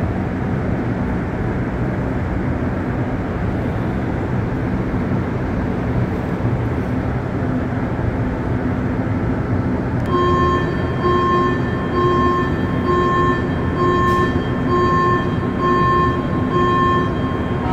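An MR-73 metro train stands with its equipment humming steadily under the noise of pouring rain. About ten seconds in, a clear electronic beep starts, repeating roughly once a second.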